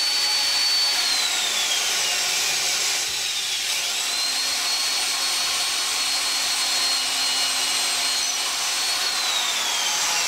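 Vintage Wolf 1/2-inch heavy duty electric drill running, its bit boring into a block of wood. The high motor whine drops in pitch about a second in, picks back up to full speed a few seconds later, and drops again near the end.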